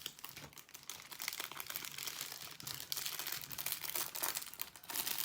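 Plastic film crinkling and crackling in irregular bursts as it is handled: the clear protective film over a diamond painting canvas.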